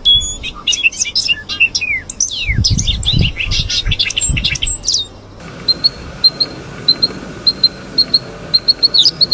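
Small songbirds chirping and twittering, with quick high chirps and falling whistled notes. About five seconds in, the sound changes abruptly to a single bird repeating a short chirp about twice a second. Several low thumps come in the middle of the first part.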